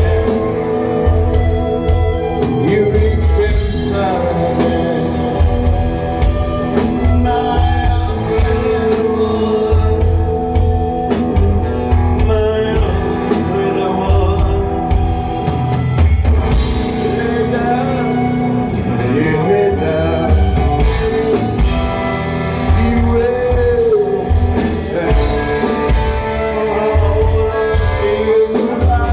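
Rock band playing live: drum kit, guitars and a singing voice over a steady beat.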